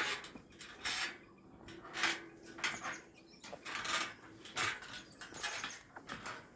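Footsteps of people walking along a forest path, one step roughly every second, each a short scuffing crunch.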